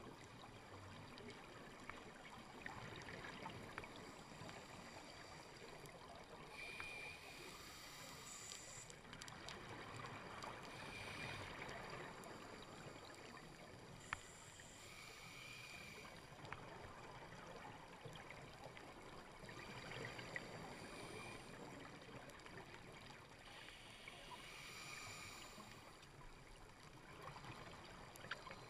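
Scuba diver breathing underwater through a regulator: a faint, bubbling swell of exhaled air about every four to five seconds over a steady hiss.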